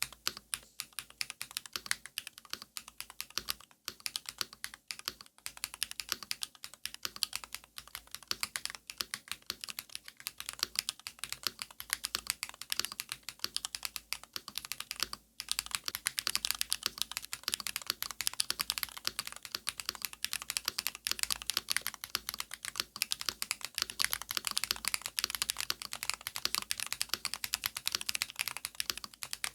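Typing on a mechanical keyboard with SW x Haimu MP (metal pole) tactile switches, Hammerworks CRP keycaps and an aluminium plate in a full-brass Tofu60 Redux case, on a leather-and-foam mat: a continuous stream of keystroke clacks. After a brief pause about halfway through, the typing gets denser and louder.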